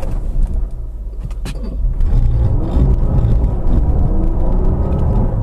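2016 Jeep Cherokee's 3.2-litre V6 engine revving under load while its tyres spin in deep snow trying to climb a slick hill. The engine note dips about a second in and rises again about two seconds in.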